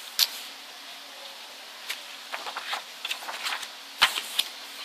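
Pages of a thick glossy photobook being handled and turned: scattered short paper rustles and taps over a steady hiss, the sharpest about four seconds in.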